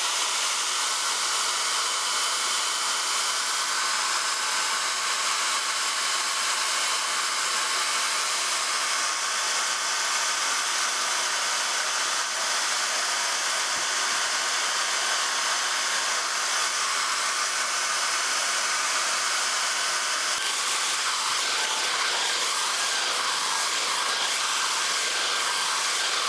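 Hand-held hair dryer running steadily: a continuous rush of blown air with a faint steady whine, used as a heat source to soften glue.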